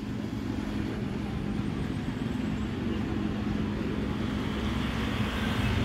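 Steady traffic noise with a constant low engine hum, growing slightly louder near the end.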